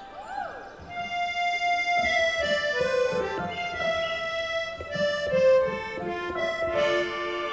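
Accordion music from a recorded show soundtrack, playing a slow melody in held chords. It swells up about a second in.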